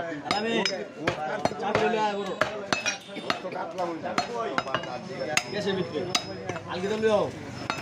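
People talking over frequent sharp knocks and metallic clinks.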